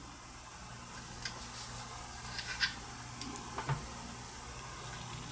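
A few light clicks and taps from handling small jewelry parts, the earring backs being opened, over a faint steady low hum.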